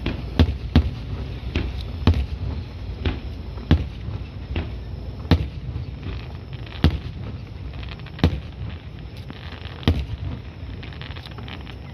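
Aerial fireworks going off: a string of sharp booms every second or two, each with a short echoing tail, thinning out toward the end.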